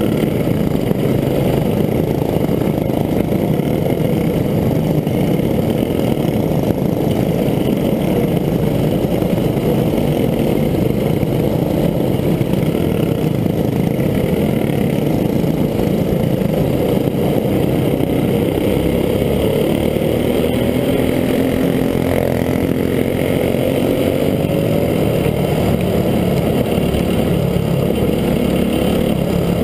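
Dirt-track racing go-kart engine running hard under load, heard close up from a camera on the kart: a loud, steady engine drone whose pitch rises and falls a little in the second half.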